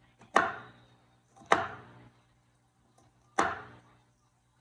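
Chef's knife slicing through a peeled onion and striking a bamboo cutting board three times, a second or two apart.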